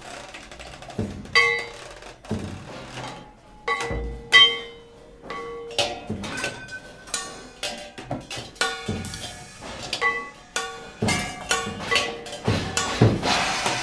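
Free-improvised percussion duet: scattered, irregular strikes on drums and percussion, some left ringing with held tones. The hits come thicker from about halfway on.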